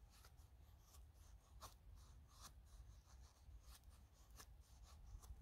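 Knife blade shaving thin curls off a dry kindling stick to make a feather stick: a series of faint, short scraping strokes, roughly one every half second to second.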